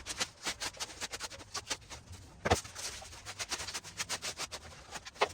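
Packing wrap being pulled and torn off furniture parts: an irregular run of crinkles and crackles, with a sharper snap about two and a half seconds in and another near the end.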